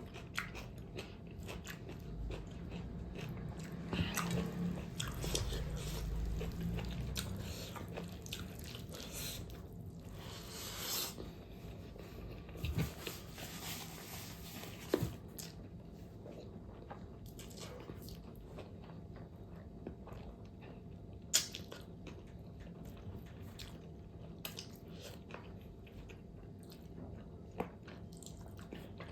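A person biting and chewing pork fat close to the microphone, with scattered sharp mouth clicks and louder chewing about 4 and 11 seconds in.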